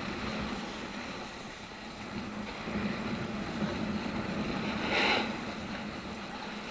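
Steady background noise of an indoor ski slope hall, with a brief louder sound about five seconds in.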